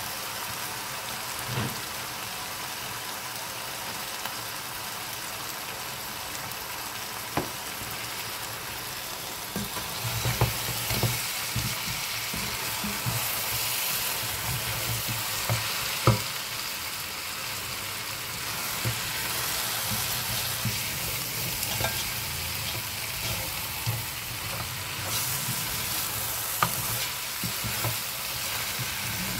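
Lamb pieces frying in spice paste in a nonstick pot, a steady sizzle. From about ten seconds in a spoon stirs and scrapes through the meat, with a few sharp knocks of the spoon against the pot.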